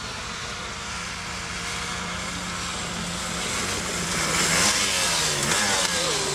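Snow quad's engine running steadily under throttle, getting louder about four seconds in along with a rushing hiss; its pitch dips briefly near the end.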